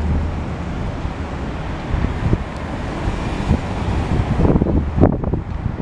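City road traffic noise, a steady rumble of passing cars, with wind buffeting the microphone. A few short knocks come shortly before the end.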